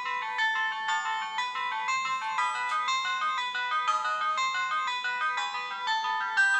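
Siemens MC60 mobile phone playing a polyphonic ringtone: a quick melody of short stepped notes, several sounding together.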